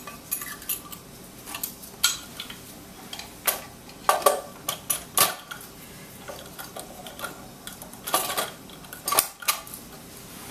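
Irregular metal-on-metal clinks and knocks of Royal Enfield Bullet 350 engine parts being fitted together by hand: the flywheel assembly going into one half of the crankcase.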